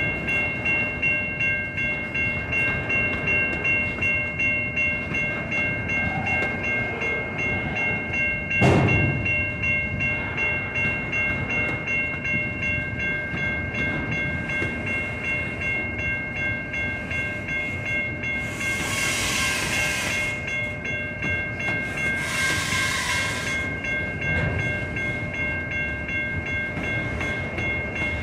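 Freight train of autorack cars rolling past, with a rhythmic clatter of wheels over the rails and a steady high-pitched ringing tone throughout. A loud metallic bang comes about nine seconds in, and two hissing bursts come later on.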